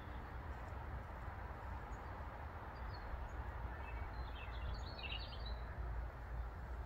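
Steady outdoor background noise with a low rumble, and a brief flurry of faint bird chirps about four to five seconds in.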